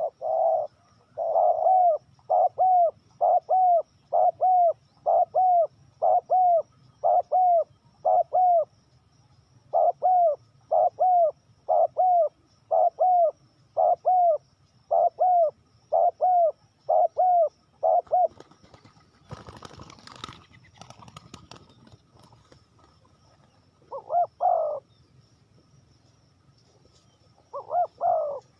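Spotted dove cooing: a fast run of short, repeated coos at about two a second, then a brief rustle, then two more coos spaced a few seconds apart.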